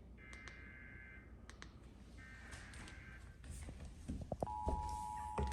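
Emergency Alert System SAME header data bursts, each about a second of buzzy, warbling tones, encoding a severe thunderstorm warning. Two bursts are heard. About four and a half seconds in, the steady two-tone EAS attention signal starts. Scattered clicks and a couple of low thumps are heard over the tones.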